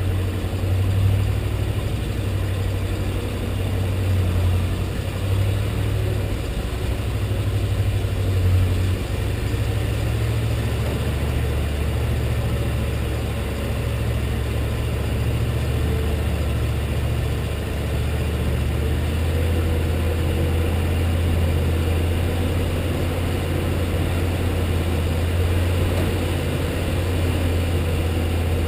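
Truck engine running steadily at low revs, its pitch dropping slightly about nine seconds in.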